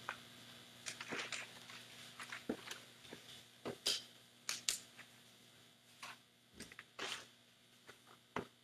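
Pages of a binder being turned and handled: a string of short, soft paper rustles and clicks spread unevenly over several seconds.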